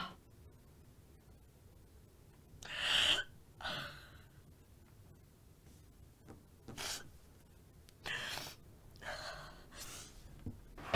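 A woman crying quietly: several short, breathy sobbing gasps and sniffs, the loudest about three seconds in, with quiet pauses between them.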